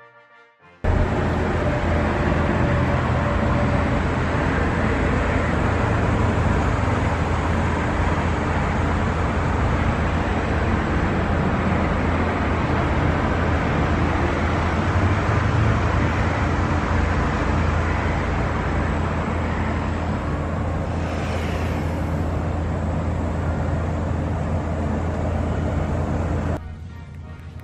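A loud, steady rushing noise with a low hum, starting suddenly about a second in and dropping away near the end.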